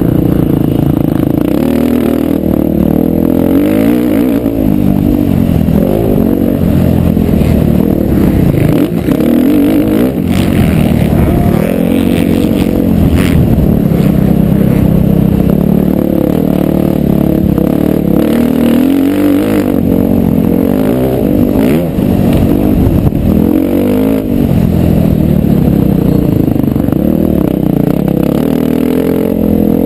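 2011 KTM 350 XC-F's single-cylinder four-stroke engine, ridden hard around a motocross track, revving up and dropping back over and over through the turns and straights, heard from the rider's helmet.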